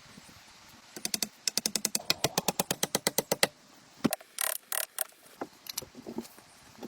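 A fast, even run of sharp knocks, about nine a second for a couple of seconds, then a handful of louder single strikes.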